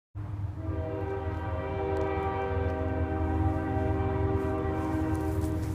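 A long sustained chord of several steady tones over a deep steady rumble, starting abruptly after a moment of silence.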